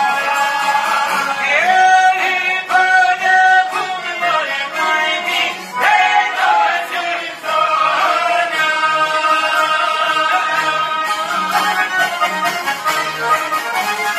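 Several men singing an Albanian folk song together to strummed Albanian long-necked lutes, çifteli and sharki. The voices move through short bending phrases, then hold long notes from about the middle on.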